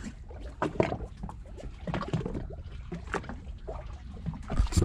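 Water lapping and slapping against the side of a small boat's hull, a run of short irregular splashes.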